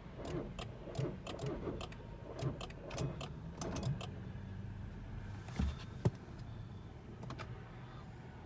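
A 2013 VW Jetta 2.0 TDI diesel is cranked slowly, with uneven low pulses and clicks for about four seconds, then settles into a steadier low running sound broken by two thumps. The owner puts this slow start down to fluid collecting in the intercooler, a near-hydrolock.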